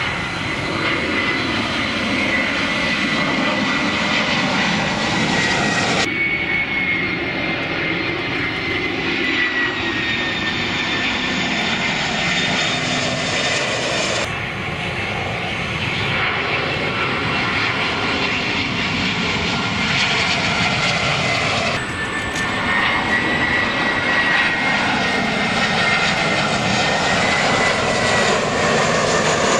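Airbus A320-family jet airliners flying low overhead on final approach: a steady loud jet rush with a high turbofan whine that slowly slides in pitch. The sound changes abruptly a few times as one aircraft gives way to the next.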